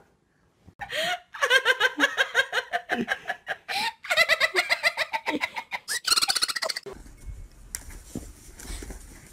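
A person laughing hard in fast, high-pitched bursts for about six seconds, with short breaks for breath. The laughter stops about seven seconds in and gives way to a quieter low rumble.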